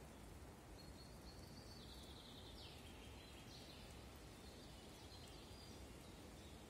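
Near silence in a forest: a faint hiss of ambience, with a bird singing faintly and distantly in a run of high notes through the middle.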